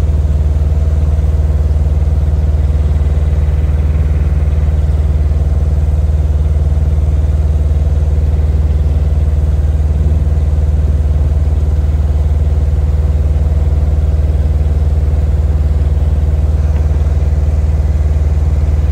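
Engine running aboard a river ferry, a loud, steady low drone that does not change.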